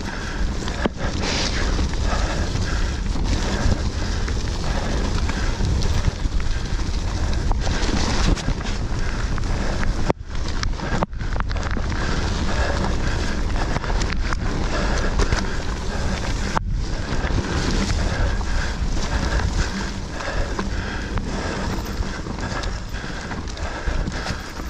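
Mountain bike being ridden fast down a dirt woodland trail, heard from a camera on the bike: steady wind buffeting on the microphone mixed with the bike's rolling noise over the ground. The noise cuts out suddenly for a moment about ten seconds in and again at about seventeen seconds.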